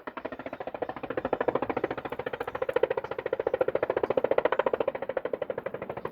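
Helicopter rotor blades beating in a fast, even pulse of many beats a second, starting suddenly and then running steadily.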